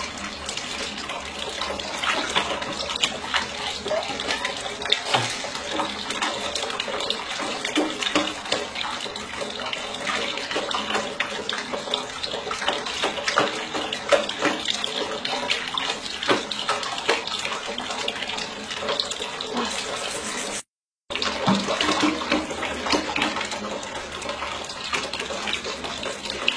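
Tap water running steadily into a sink, splashing, with many small knocks scattered through it. The sound drops out completely for a moment about 21 seconds in.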